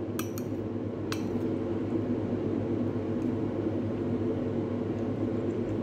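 A metal fork and spoon clink against a plate a few times in the first second or so, over a steady low hum.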